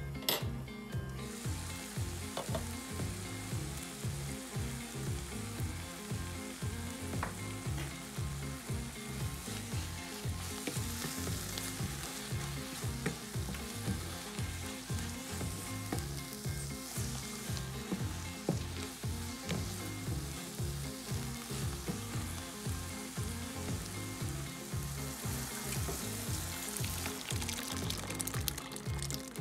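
Spinach and spices sizzling in a hot frying pan while being stirred with a wooden spatula, over background music with a steady beat.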